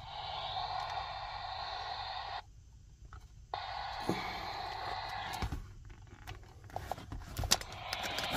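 Static hiss from a 1970s Midland car CB radio's speaker. It cuts out for about a second around two and a half seconds in, then comes back, with scattered clicks in the second half.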